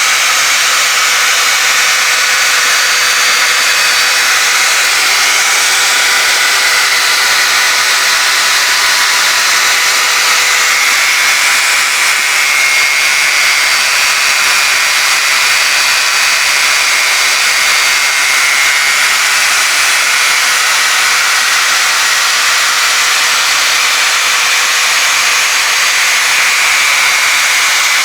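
Homemade lathe running steadily: a constant motor whine with a loud hiss over it.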